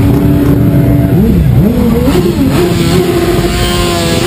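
Several motorcycle engines running close by, revved up and down as the bikes roll past slowly, their pitches rising and falling over one another.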